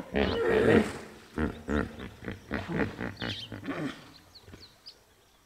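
A series of deep animal calls, loudest at the start and dying away over about four seconds, with a few thin high chirps near the middle.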